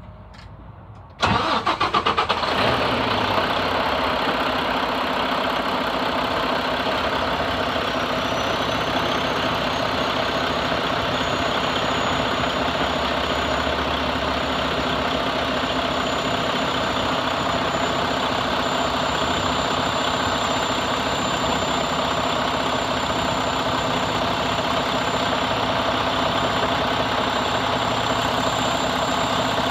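Mack MP8 inline-six diesel engine cranking and firing about a second in, then settling into a steady idle. A faint high whine rises over several seconds and then holds steady.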